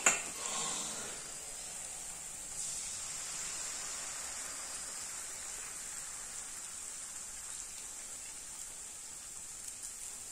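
Chilli-garlic paste frying in oil in an aluminium kadhai, a soft steady sizzle. It is preceded by a sharp knock of a spoon or bowl on the pan at the very start, and the hiss grows a little louder about two and a half seconds in as gram-flour batter is poured in.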